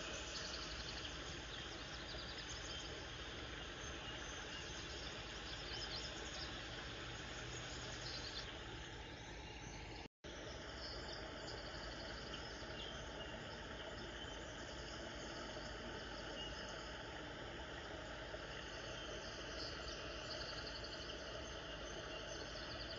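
Steady outdoor background hiss with faint high chirps now and then, cut by a brief dropout about ten seconds in.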